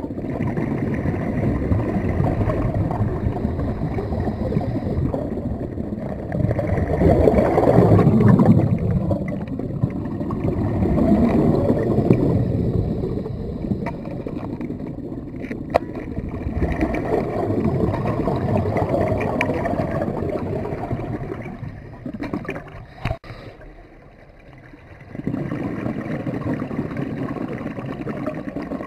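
Underwater rushing and gurgling water noise that swells and fades every few seconds, like a scuba diver's exhaled bubbles. It drops away briefly about three-quarters of the way through, then returns.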